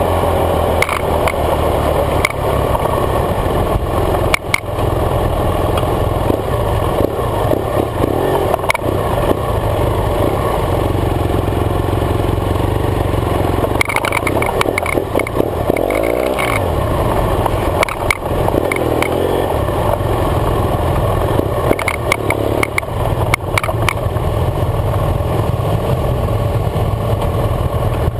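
BMW F800GS parallel-twin engine running while riding over rough dirt, its pitch rising and falling with the throttle, under heavy wind rush, with scattered knocks and rattles from bumps.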